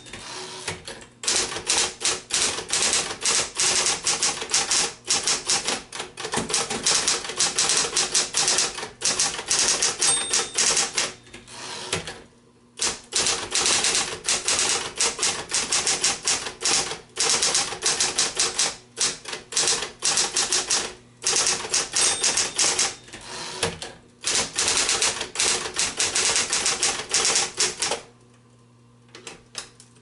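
Smith-Corona-built Concord 12 electric portable typewriter being typed on: fast runs of key strikes over the electric motor's hum, with a short pause about twelve seconds in. Near the end the typing stops and the motor is left humming.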